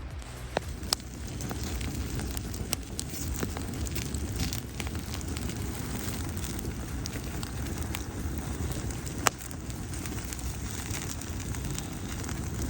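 Wood campfire burning with a steady low rush, crackling with scattered sharp pops; the loudest pop comes about nine seconds in.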